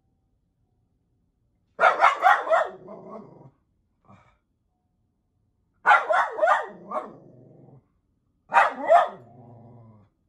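Miniature poodle barking in three bouts of several quick, sharp barks, each bout trailing off into a low growl.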